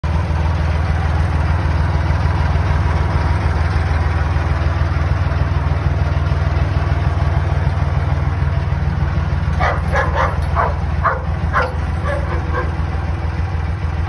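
Farm tractor engine running steadily. Late in the stretch, a dog barks about eight times in quick succession over the engine.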